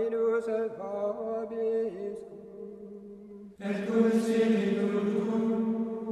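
Chanted singing, the voices holding long notes with small slides in pitch; about three and a half seconds in, a louder, fuller chord comes in.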